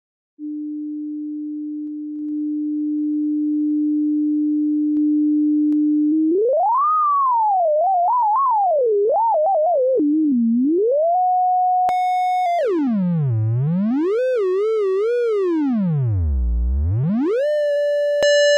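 Synthesized tone from a wavetable synthesizer app on an Android phone: a pure sine tone at about 300 Hz that grows louder, then glides up and down in pitch as the frequency slider is dragged. About twelve seconds in it turns buzzier with overtones and sweeps down very low and back up, and near the end it switches to a brighter square wave.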